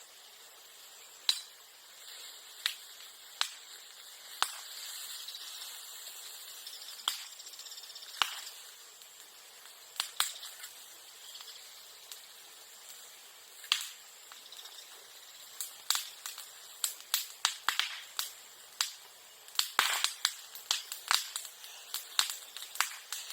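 Bonfire of bamboo and bamboo grass burning, with sharp pops and cracks at irregular intervals that come thicker and faster near the end, over a soft steady hiss.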